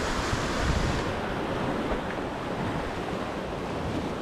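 Sea surf washing and breaking against rocks, with wind buffeting the microphone in gusts.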